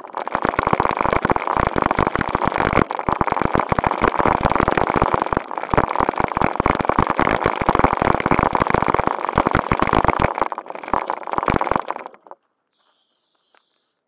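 Onboard noise of a 1:16 JJRC Q76 RC car driving on a rough gravel road: a dense crackle with a faint steady motor whine under it. It cuts off about twelve seconds in as the car stops.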